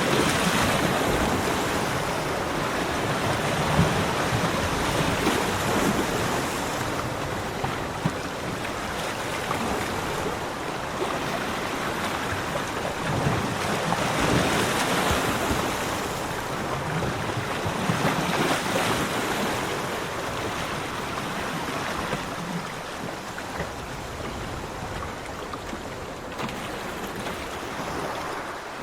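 Ocean surf breaking and washing up a beach: a continuous rush of water that swells louder every few seconds as each wave comes in, then eases.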